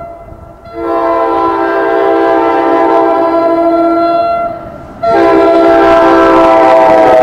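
Air horn of an NJ Transit ALP-46 electric locomotive blowing for a level crossing: two long, loud blasts with a half-second gap between them, about four seconds in. The pitch of the second blast starts to slide down near the end as the locomotive passes.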